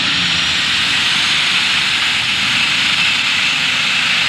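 Turbocharged diesel pulling tractor running flat out under full load as it drags the sled, a steady, loud engine noise with a high turbo whine over it.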